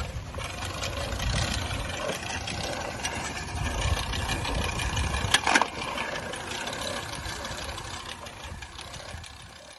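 A brush cutter's small engine running unevenly with a rattle. A sharp knock about halfway through is the loudest moment, and the sound fades out near the end.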